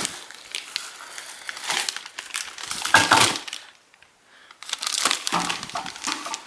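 Packing material and plastic wrapping crinkling and rustling as exhaust pipes are handled in their shipping box, with a dull knock about three seconds in and a brief pause just after.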